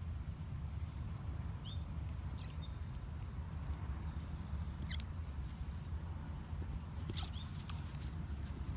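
Bernese mountain dog puppy hiccuping: several short, high, squeaky hics a second or two apart, over a steady low rumble.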